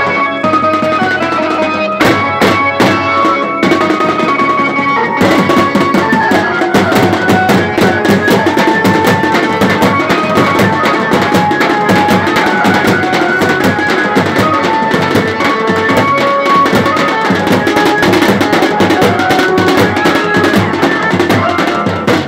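Street drumming for dancing: a large barrel drum and a smaller stick-beaten drum playing a fast, loud rhythm. The strokes come in separate bunches at first, then turn into dense, unbroken drumming from about five seconds in, with a high melody line above the drums.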